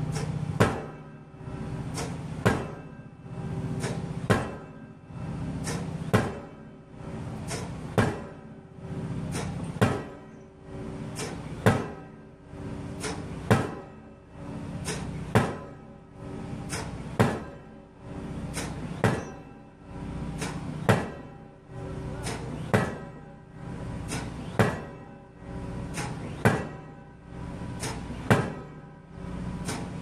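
Bruce SGH-2015 hydraulic impact hammer driving a 1,420 mm steel casing pile: a sharp metallic blow about every 1.8 seconds, each ringing briefly, over a steady machine drone that swells between blows.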